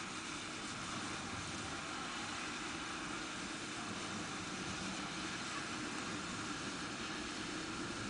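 Steady background hiss, even and unchanging, with no distinct sounds in it.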